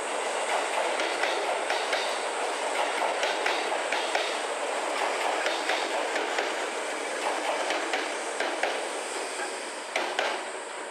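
Train running over station tracks, its wheels clacking in an irregular run over rail joints under a steady rumble, with a couple of louder clacks near the end as the sound drops off a little.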